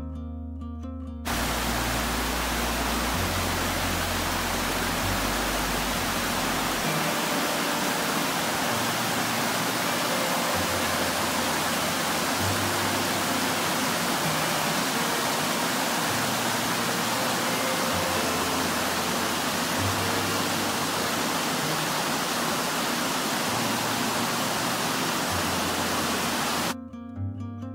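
Creek water rushing down a cascade over smooth rock slabs: a steady, full hiss that starts suddenly about a second in and cuts off near the end.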